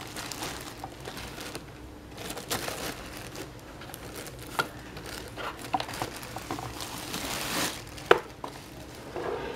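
Clear plastic wrapping crinkling and rustling as it is pulled off a computer keyboard, with a couple of sharp clicks in between.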